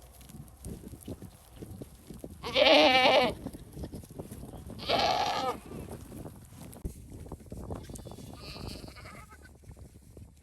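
Goats bleating: two loud, wavering bleats a couple of seconds apart, then a fainter, higher bleat near the end.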